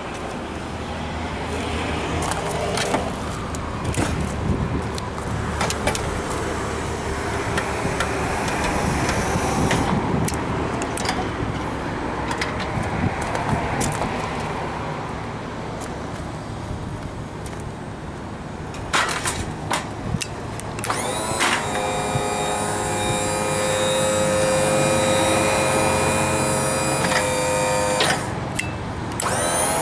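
Braun Millennium Series hydraulic wheelchair lift unfolding and lowering its platform to floor level: a steady mechanical running noise with knocks and clanks of the folding platform, a few sharp clicks about two-thirds of the way through, then a steady whine of several tones from the pump motor until near the end.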